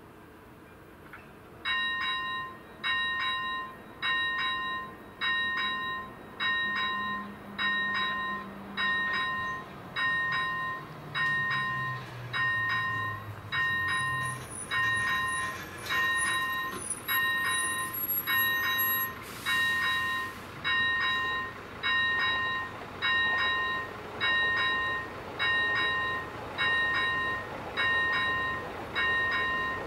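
Railway level-crossing warning bell ringing about once a second, starting about two seconds in. Each stroke is a sharp ding that dies away, warning of an approaching train.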